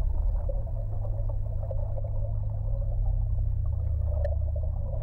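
Muffled underwater ambience: a steady low rumble with faint crackling, and one sharp click about four seconds in.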